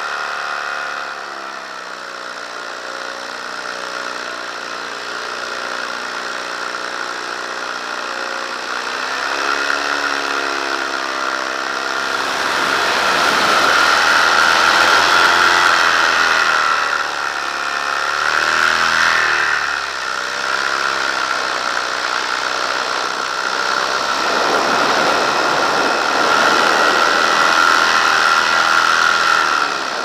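Paramotor engine and propeller running in flight, its pitch wavering up and down. The sound grows louder and rougher in two spells in the second half.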